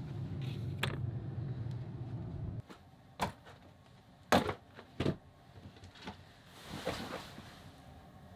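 A door opened by its knob, with a latch click, over a steady low hum that stops suddenly about two and a half seconds in. Then come a few sharp knocks and soft handling noises, the loudest knock a little past four seconds in, as the camera is carried and set down.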